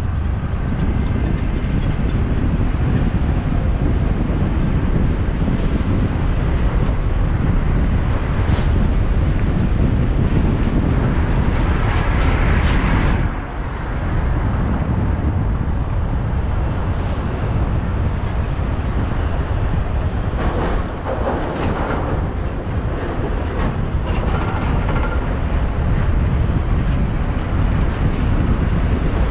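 Road and traffic noise heard from a moving vehicle: a loud, steady low rumble throughout, with brief louder stretches of passing traffic about halfway through and again a little later.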